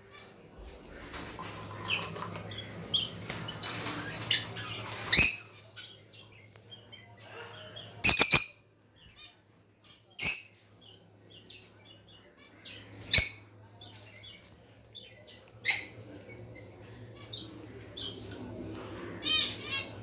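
Small cage birds chirping and fluttering, with a handful of loud, sharp single calls a few seconds apart and a quick trill near the end.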